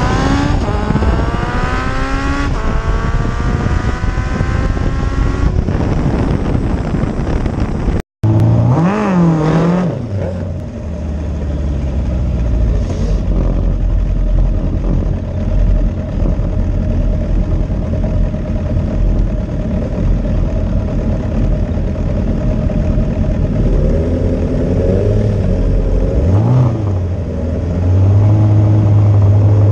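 Suzuki Bandit 1200 drag bike's inline-four engine at full throttle, its pitch climbing again and again through the gears. After a cut it idles low, gives a few short throttle blips, and near the end is held at steady raised revs at the start line.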